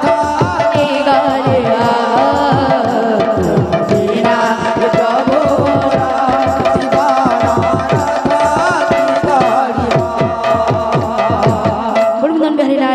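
Kirtan music: fast hand-drum playing under a held melody line with singing voices. The drumming stops near the end.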